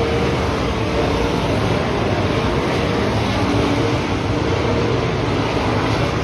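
A pack of dirt-track modified race cars running laps on the oval. Their engines make one loud, continuous blare, with pitches wavering up and down as the cars go by.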